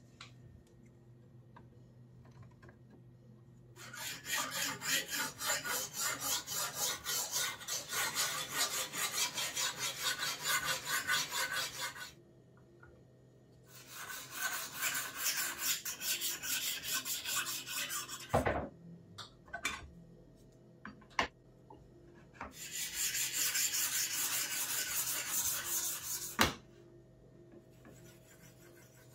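Sharpening stone on a guide rod stroked rapidly back and forth along a knife blade clamped in a homemade sharpening jig: three bouts of rhythmic scraping. Between the bouts come a few sharp knocks and clicks, and a single loud knock ends the last bout.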